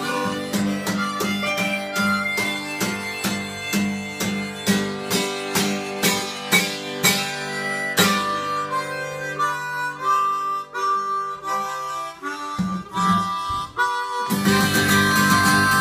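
Harmonica solo played over two acoustic guitars strumming a steady rhythm. The guitars thin out in the second half and come back in full near the end.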